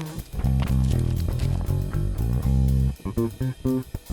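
Background music: a song with guitar and a prominent bass line.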